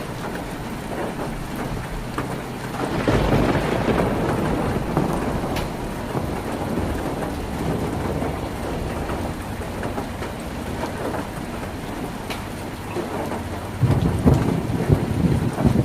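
Heavy rain drumming steadily on a tin roof, with thunder rumbling. The rumble swells about three seconds in and again near the end.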